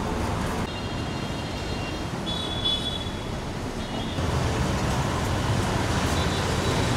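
Steady city road-traffic noise, with faint high horn-like tones in the first three seconds. A louder low rumble comes in about four seconds in.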